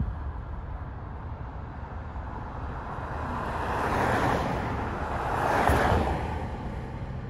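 A car, a silver Subaru Forester, drives past close by. Its tyre and road noise swells to a peak about four seconds in and again near six seconds, then fades, over a steady low rumble.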